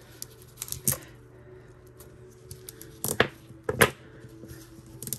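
Large faux pearl beads clicking and clacking against each other as a necklace is handled, in a few separate bursts, the loudest about three to four seconds in.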